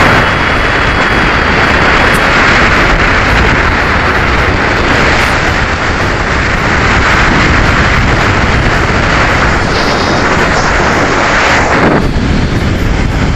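Loud, distorted noise of a passing truck, with wind on the microphone, cutting off sharply about twelve seconds in.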